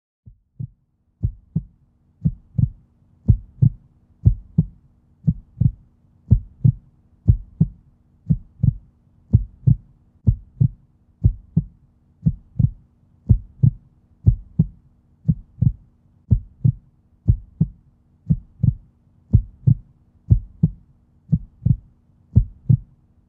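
Heartbeat sound effect: low double thumps (lub-dub) repeating steadily, about one beat a second, over a faint steady hum.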